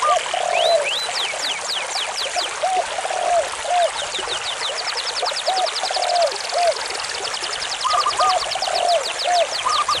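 Stream water running steadily over rocks, with repeated short chirping calls and fast high trills from wildlife over it.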